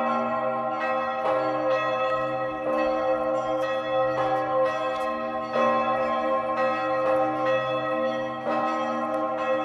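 The Augustin bell in the White Tower, the third-largest bell in the Czech Republic, ringing as it swings. Its clapper strikes about every second and a half, and each deep, humming tone rings on into the next strike.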